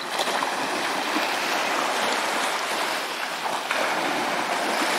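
Small sea waves washing steadily onto a stony shore, a continuous hiss of surf that grows a little fuller past halfway.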